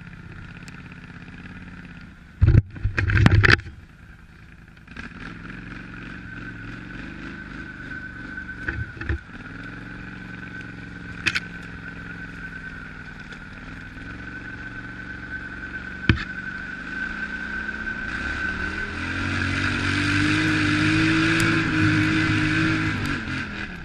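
ATV engine running under way with a steady whine, with a burst of loud knocks and clatter about three seconds in. In the last five seconds the engine revs up and grows louder under load as the machine pushes through deeper snow.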